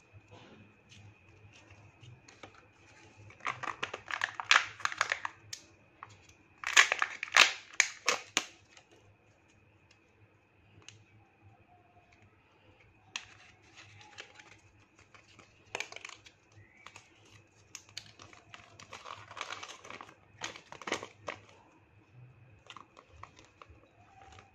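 Crinkling plastic and paper packaging of a Kinder Joy toy being unwrapped by hand. It comes in irregular bursts: the loudest are two clusters a few seconds in, with lighter rustling and clicks later on.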